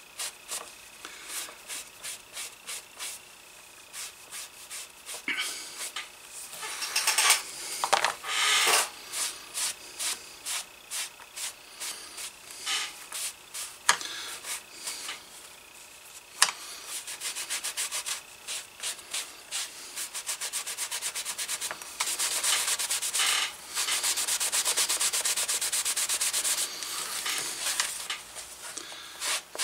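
A green pad buffing excess conditioner off a black leather holster, in quick back-and-forth rubbing strokes. There is a faster, louder, steadier stretch of rubbing about three-quarters of the way through.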